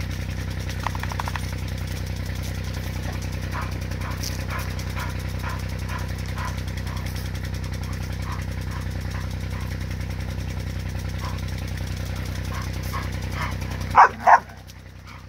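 A bull terrier gives two loud barks near the end, over a steady low machine hum that runs until the barks and then drops away. Faint short blips come about twice a second before them.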